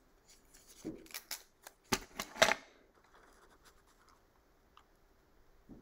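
Clear Scotch Magic Tape pulled off a desk dispenser and torn on its cutter: a quick run of scratchy rips and clicks in the first half, loudest about two and a half seconds in, then only faint rustling.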